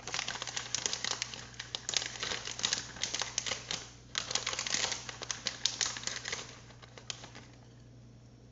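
A plastic bag of shredded mozzarella crinkling and rustling as the cheese is measured out: dense, rapid crackles with a short break about four seconds in, dying down near the end.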